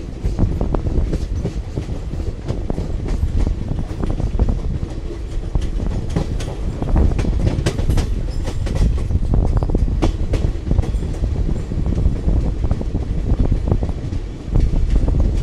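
Passenger express train coach running at speed, with a steady low rumble and irregular clattering and clicking of the wheels on the track.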